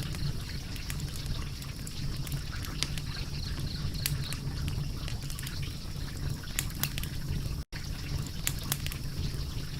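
Wood fire crackling: irregular sharp pops and snaps over a steady low rumble. The sound cuts out for an instant about three-quarters of the way through.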